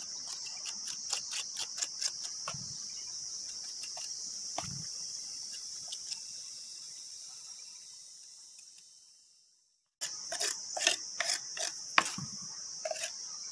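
Insects chirring steadily in one high band, with scattered light clicks and taps from hands and a trowel working the cement pot. The chirring fades away about two-thirds through, stops for a moment, then comes back suddenly near the end.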